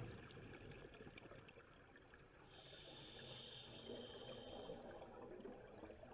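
Near silence with faint underwater sound from a scuba diver's breathing gear: a soft hiss of breath lasting about two seconds near the middle over faint crackling.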